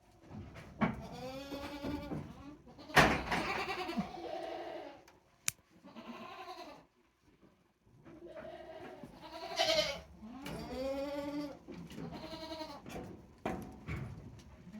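Goats bleating over and over, about six calls, some of them overlapping, with a few sharp knocks among them, the loudest about three seconds in.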